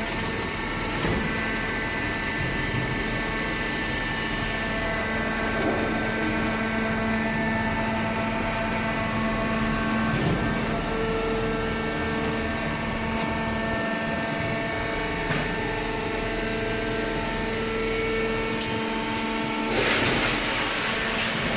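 Waste paper baler running: a steady mechanical hum with several held tones over a noisy bed, and a brighter rush of noise near the end.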